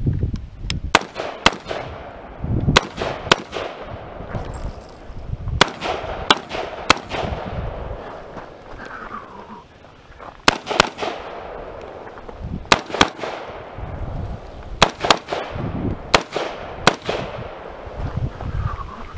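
AR-style rifle firing a stage string: sharp cracks, mostly in quick pairs about a third of a second apart, each followed by a short ringing echo, with pauses of one to two seconds between pairs as the shooter moves between targets.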